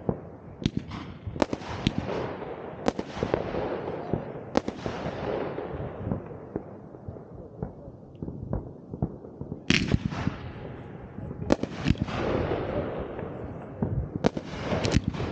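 Fireworks going off: a run of sharp bangs and crackles, each followed by a long rolling echo that dies away. The loudest bang comes a little under ten seconds in.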